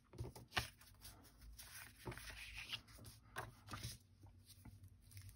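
Faint rustling and sliding of cut cardstock pieces being handled on a cutting mat, with a few light taps and a longer soft swish about two seconds in.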